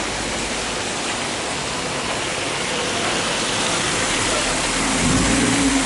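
Steady, loud rushing noise, with a brief low hum about five seconds in.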